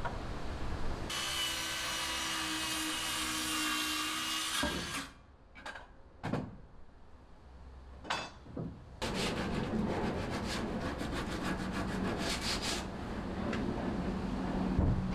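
Timber decking boards being sawn and handled. A steady saw cut runs for about three and a half seconds, a few wooden knocks follow, then a long stretch of rapid scraping of wood on wood.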